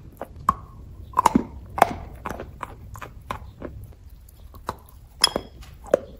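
Close-up crunching of chalk being bitten and chewed: a string of sharp, irregular crisp crunches, several a second, with the loudest a little over a second in and again about five seconds in.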